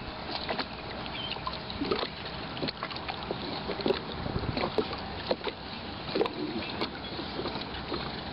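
Water lapping and slapping in a light chop, with wind and scattered light knocks and clicks.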